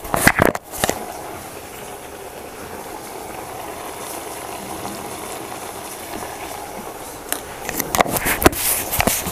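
Paneer gravy bubbling steadily at a simmer in a metal kadai. A steel spoon clinks and scrapes against the pan in the first second and again over the last two seconds.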